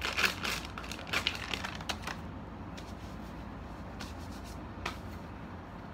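Small plastic drink bottles handled on a wooden table: a run of crackling and clicking plastic with light knocks for about two seconds, then a few single clicks.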